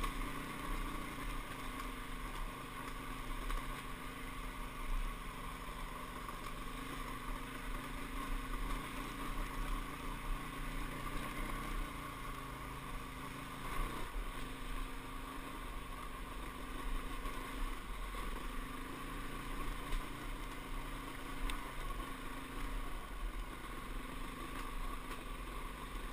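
Dirt bike engine running at low, steady revs on a slow, rocky trail ride, its note shifting a little up and down with the throttle, heard from a helmet-mounted camera.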